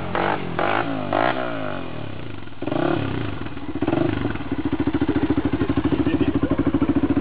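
Motorcycle engine running with its pitch rising and falling as the throttle changes, a clattering jolt about two and a half seconds in, then settling into a steady, rapidly pulsing idle from about halfway through.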